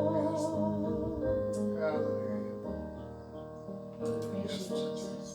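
Church keyboard playing soft sustained chords as a hymn closes, with a singer's held, wavering note fading out in the first couple of seconds; the music grows quieter toward the end.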